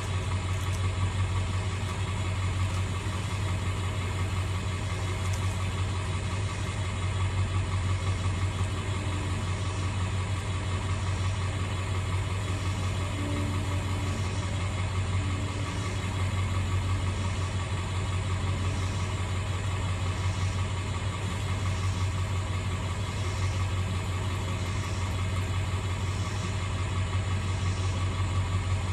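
Irrigation pump motor running steadily: a constant drone with a strong low hum that holds the same pitch throughout.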